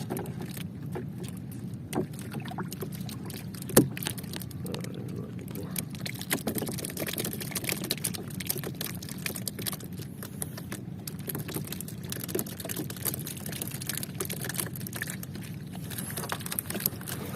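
Water sloshing and slapping against a small fishing boat's hull, with scattered small clicks and knocks and one sharp knock nearly four seconds in.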